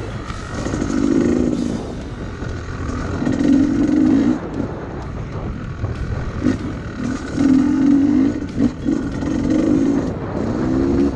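Enduro motorcycle engines revving in repeated bursts of throttle, about one to two seconds each, over a steady lower engine rumble.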